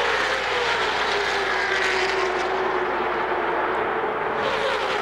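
NASCAR stock cars' V8 engines running flat out on a race broadcast: a steady, loud drone whose pitch slowly falls.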